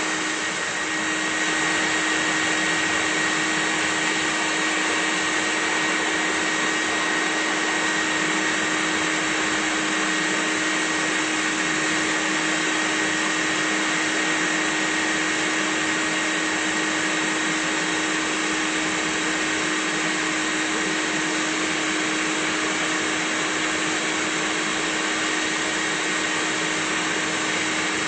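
Bee vacuum's motor running steadily: a constant rushing noise with a low hum and a thin high whine.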